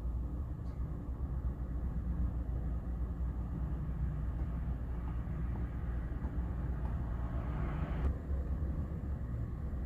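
Strong wind buffeting the microphone: a steady, uneven low rumble, with a hissing gust building around seven seconds in that cuts off abruptly just after eight seconds.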